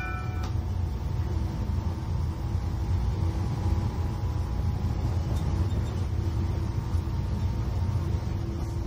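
Steady low rumble of a JR 183 series electric limited-express train running, heard from inside the passenger car.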